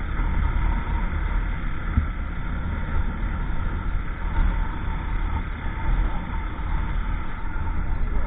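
Wind buffeting the microphone of a motorcycle-mounted camera, a steady low rumble, with the motorcycle's engine and tyre noise running underneath while cruising at speed.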